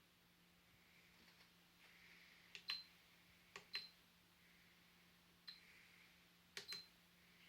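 Faint sharp clicks, mostly in close pairs, heard four times, each with a brief high ring, over quiet hiss.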